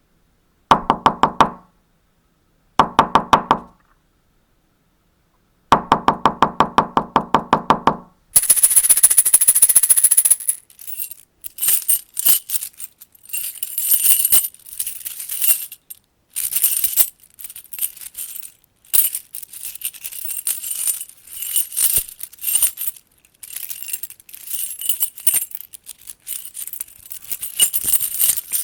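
A door being knocked in three quick rounds of rapid raps, the last one longer. Then a bunch of keys jingles, shaken in repeated bursts.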